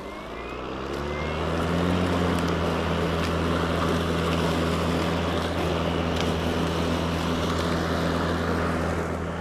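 RYOBI 40V HP Whisper Series cordless mower's brushless motor and blade spinning up with a rising whine in the first second or so, then running steady with a low hum and the rush of grass being cut.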